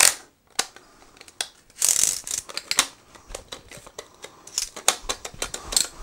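Clicks and rattles of a vacuum cleaner's metal telescopic tube being slid and locked by hand, with a brief scraping slide about two seconds in.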